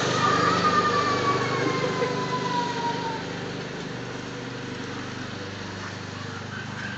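Small ride-on tractor's engine running steadily, fading as it drives away and then holding at a lower level. A high whine glides downward in pitch over the first three seconds.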